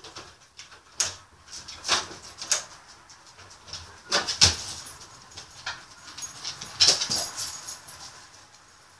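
Cardigan Welsh Corgi's paws scrabbling and knocking at a wooden door and its metal lever handle, a handful of sharp clatters spread over several seconds; the latch clicks and the door swings open near the end.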